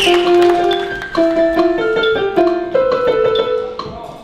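Music: a piano or keyboard playing a melody of short held notes that step up and down, growing slightly quieter near the end.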